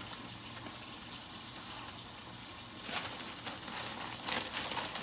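Collard greens sizzling steadily in a hot pan, with a plastic bag crinkling briefly about three seconds in and again near the end as more greens are shaken out of it.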